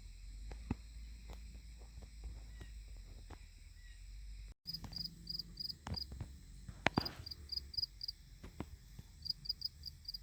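Crickets chirping in short, evenly spaced high pulses that begin after a cut about halfway through, with scattered sharp clicks and knocks from close by. Before the cut there is a low rumble with light clicks.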